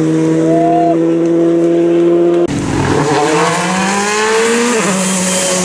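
Rally car engine held at steady revs through a corner, then, after an abrupt cut, another rally car's engine climbing in pitch as it accelerates up the road. It shifts up about five seconds in, with tyre hiss from the wet surface.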